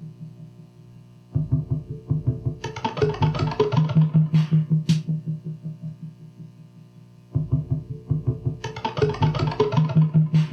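Live electronic noise music: a loop of rapid, pulsing low tones that cuts out and restarts abruptly about every six seconds, with a distorted hissing wash and sharp cymbal-like hits layered over it.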